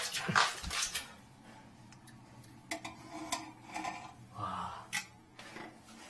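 Ceramic toilet tank being handled and moved: a cluster of sharp knocks and clicks in the first second, then a few scattered light clicks and a short scrape.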